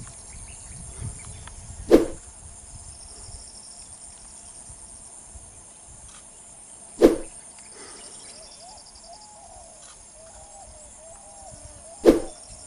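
Steady high-pitched insect chorus of wild scrubland, with a few faint curving calls like distant birds. Three short sharp thuds about five seconds apart stand out above it.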